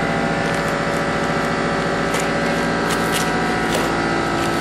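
A steady machine hum made of several held tones, with a few faint short clicks.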